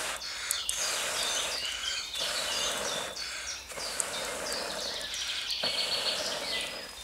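A person blowing into the firebox of a small folding wood stove to liven the fire, in several long blows of a second or more each with short pauses for breath. Songbirds chirp in the background.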